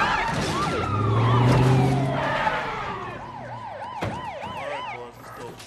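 Police sirens wailing in a fast up-and-down yelp, several overlapping, with one tone sliding steadily down over the first few seconds. They fade out about five seconds in, and there is a sharp knock about four seconds in.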